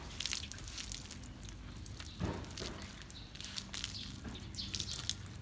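Water poured from a plastic scoop splashing over a wet, soapy dog's coat and pattering onto the ground in a run of small splashes and drips.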